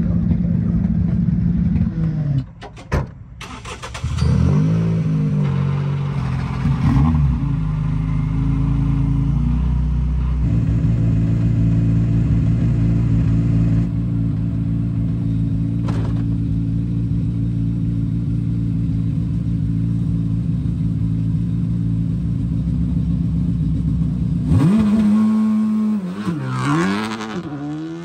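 Rally car engine at close range: it dips briefly, then the revs rise and fall. It settles into a long steady idle, then is revved again near the end as the car pulls away.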